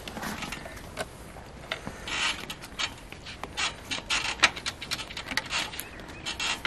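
Irregular scuffs, rustles and light clicks of people shuffling on a dirt track and climbing onto a parked motorcycle. They are sparse at first and come thicker from about two seconds in. No engine is running.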